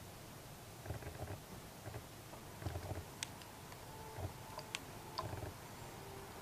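Nearly empty plastic PET bottle being handled, giving faint rustles and low bumps with a few sharp clicks and crackles of the plastic in the second half.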